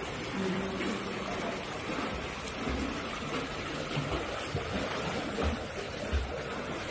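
Pool water splashing and sloshing as two swimmers kick and stroke through it, with a few soft low thumps.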